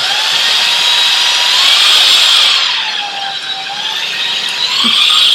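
Jashen V16 cordless stick vacuum's motor running with a high whine. The pitch sinks about midway and climbs back near the end.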